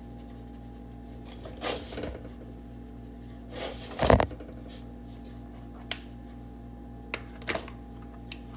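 Handling noises while seasoning a whole raw chicken in a black enamel roasting pan: a few brief rustles and taps, the loudest a knock about four seconds in, over a steady low hum.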